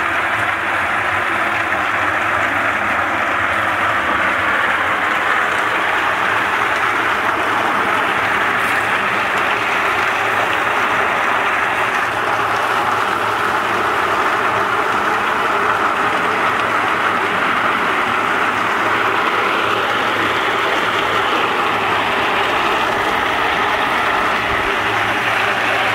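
Meltem C-120 walnut hulling machine running: a load of fresh walnuts churning against its grated steel drum under a water spray as its motor-driven blades strip off the green hulls, giving a steady, even noise.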